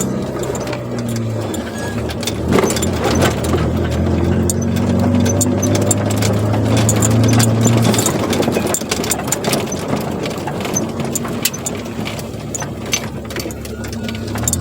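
Chevrolet Corsa Wind with a sport exhaust driving at steady, low revs, the engine's low drone easing off about eight seconds in.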